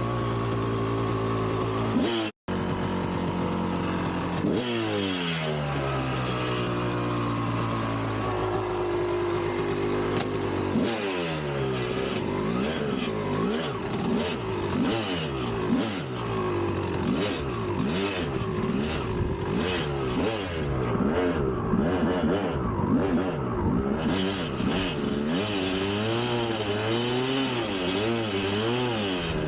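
1999 Kawasaki KX250 single-cylinder two-stroke dirt bike engine revving up and down while riding, its pitch climbing and dropping again and again. The engine cuts out for an instant about two seconds in, and the revs swing faster from about a third of the way through.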